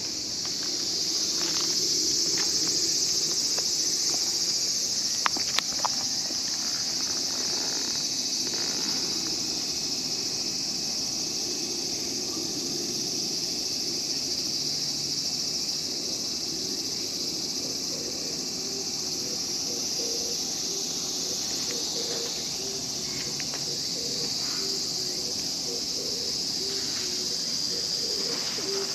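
Steady, high-pitched buzzing chorus of insects, with a few faint clicks about five seconds in.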